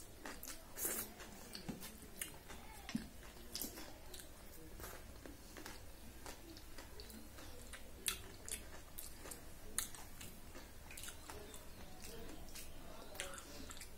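Close-up eating sounds of a person eating by hand, wiping fingers across a steel plate and taking the last mouthfuls of khichdi. The sounds are soft chewing, lip smacks and finger-sucking, heard as irregular short clicks.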